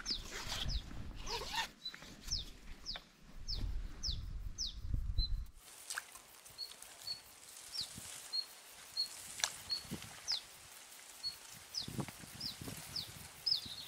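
A bird calling over and over in short high falling whistles, about two a second, later mixed with brief high pips. Under the first half there is a low rumble of wind or handling on the microphone, which stops suddenly about halfway through.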